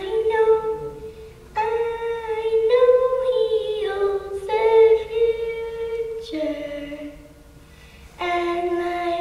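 A young girl singing solo and unaccompanied, in phrases of long held notes. There is a short break for breath about a second in and a longer one near the end.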